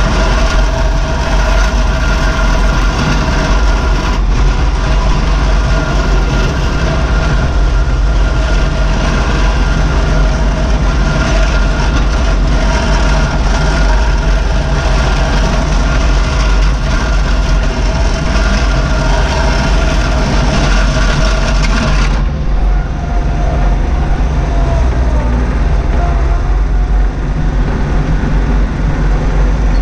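Bobcat 463 skid steer's small diesel engine running loud and steady under the cab, with a steady whine over its rumble as the machine drives along pushing its plow blade. The higher hiss drops away about three-quarters of the way through.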